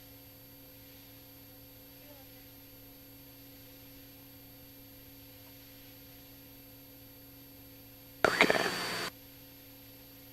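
Low steady drone of the Cessna's engine with a few constant tones, faint through the intercom feed. About eight seconds in, a loud burst of radio voice under a second long cuts in and drops out.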